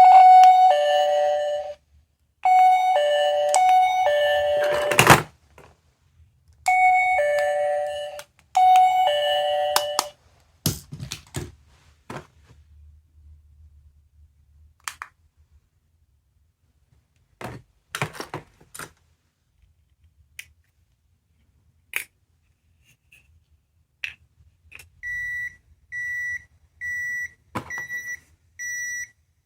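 Small electronic sound-making capsule toy playing a two-note descending doorbell chime four times, followed by scattered clicks of buttons being pressed. Near the end a quick series of about seven short high beeps sounds.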